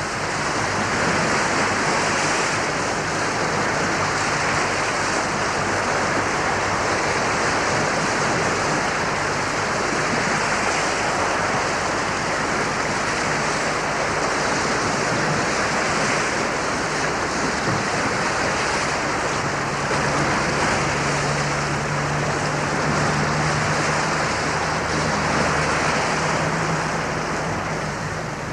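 Choppy, wind-whipped lake waves breaking on the shore: a steady, unbroken rush of surf. A low steady hum sits underneath for a stretch in the latter half.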